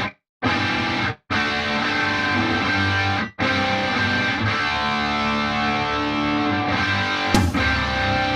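Background music led by distorted electric guitar, stopping dead for a moment three times in the first few seconds, with a sharp hit about seven and a half seconds in.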